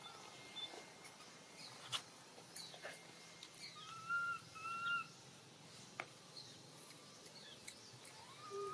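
Baby macaque giving short, faint whimpering cries: two brief calls about four and five seconds in, and a rising one near the end.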